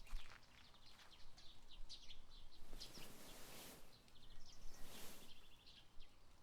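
Faint birds chirping in a garden ambience, with two soft rustling swells about three and five seconds in.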